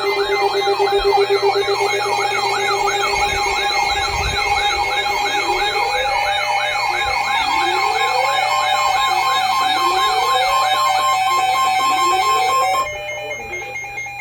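Several weather alert radios sounding their alarms at once for a flash flood warning. A steady warning tone near 1 kHz mixes with fast warbling siren tones and, from about five seconds in, a rising whoop repeated every second and a half or so. Most of it cuts off about a second before the end.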